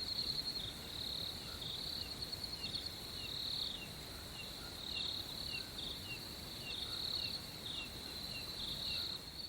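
Crickets chirping at night in a steady, high, pulsing trill, with a shorter, lower chirp repeating about twice a second.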